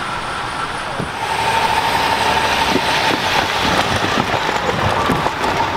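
Land Rover Discovery SUV driving over a boarded level crossing: engine and tyre noise growing louder about a second in as it passes close, with a steady whine and several short knocks as the wheels run over the crossing boards.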